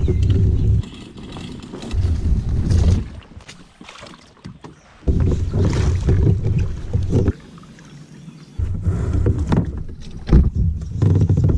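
Plastic kayak hull rumbling and knocking as it is moved over pavement and launched, carried through the hull to a camera mounted on the kayak. The rumble comes in stretches of a second or two with quieter gaps, and there is a hard knock near the end.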